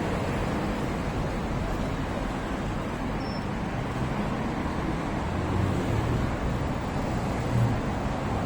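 Steady road traffic noise: a constant rush of passing vehicles.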